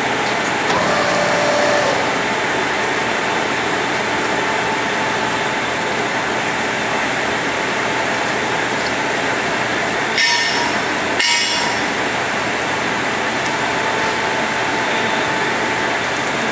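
Engine lathe running with a steady mechanical noise and a faint steady whine. About ten seconds in come two sharp metal clanks, about a second apart.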